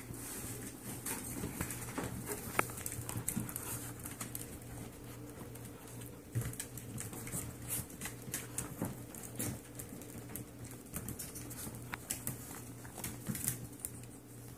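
Yorkshire terrier puppies' paws and claws pattering and clicking irregularly on a hard plank floor as they run about.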